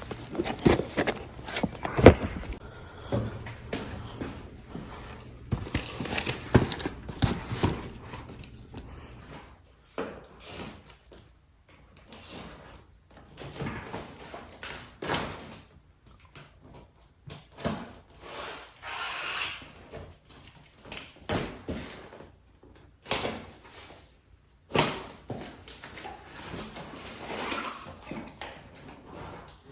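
Irregular knocks, clicks and rustling of a delivered parcel being handled and unpacked: a cardboard box and its packing being opened.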